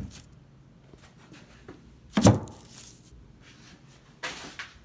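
A prefab granite countertop thunking down once onto its cabinet base, about two seconds in, with a short rustling scrape near the end as it settles into the corner.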